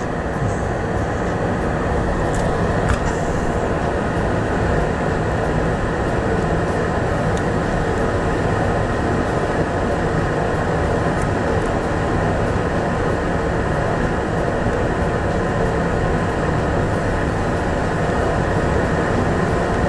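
Solder fume extractor fan running steadily, a constant rushing noise.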